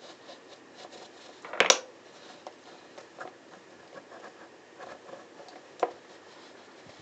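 A hand-turned clear plastic cam disc pushing a wooden Jenga-block slider up and down gives light scraping and small wooden ticks. There is a loud knock, doubled, about one and a half seconds in, and another sharp click near the end.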